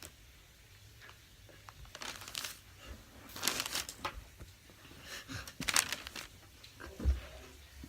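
Hands squishing and working a sticky, failed homemade slime of glue, detergent and flour: several short bursts of wet crinkling and squelching, with a dull thump near the end.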